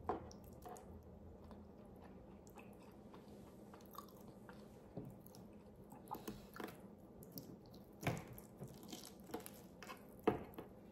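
Eating sounds: a metal fork clicking and scraping on the wooden tray and beef bone while stewed beef is pulled off, with soft chewing between. The clicks are scattered, the sharpest about eight and ten seconds in.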